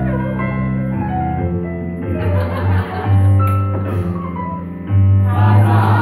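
Digital piano playing a show-tune accompaniment: held chords over low bass notes that change roughly once a second.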